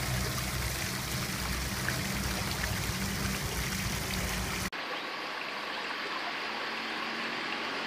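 Water running and splashing around a floating granite sphere fountain, a steady rushing water sound. A little past halfway it cuts to a second, quieter and thinner flow of water.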